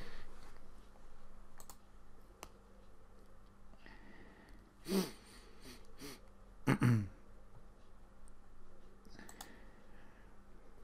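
Sparse computer mouse clicks from playing online poker, with two brief louder sounds about five and seven seconds in.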